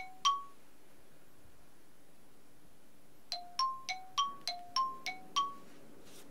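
Mobile phone ringtone: a short chiming melody of pings that alternate between a lower and a higher note, about three a second. The phrase ends just after the start and plays again about three seconds in.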